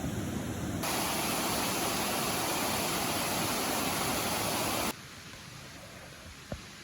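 Waterfall: rushing water as a steady, loud, even hiss. It starts abruptly just after the opening and cuts off sharply about five seconds in, leaving a much quieter hiss with a single click near the end.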